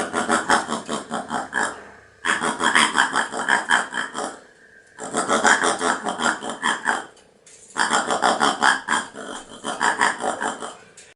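Paca calling in four bouts of about two seconds each, with short pauses between. Each bout is a quick run of rapid pulses.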